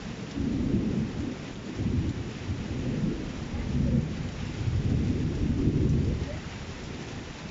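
Thunder rumbling in several rolling swells over steady rain, dying away near the end.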